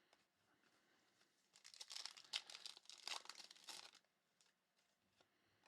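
Crinkling, rustling handling of trading cards and their packaging, lasting about two seconds from a second and a half in.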